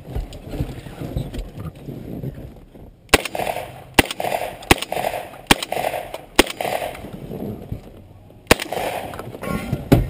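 Gunshots from a competitor's firearm, about seven in all. The first comes about three seconds in, then they follow at a steady pace of roughly one every 0.8 s, with a longer gap before the last two. Each shot is followed by a ringing smear.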